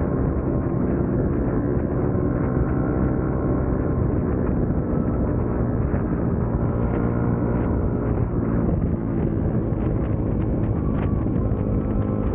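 Yamaha Sniper 155R's single-cylinder four-stroke engine running at a fairly steady speed, an engine the owner describes as gasping for air.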